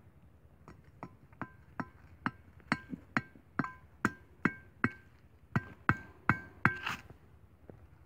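Machete blade tapped repeatedly against a metal wire fan-guard trap: about fifteen sharp metallic clinks, each with a short ring, some two or three a second, getting louder toward the middle and ending with a rougher scraping strike.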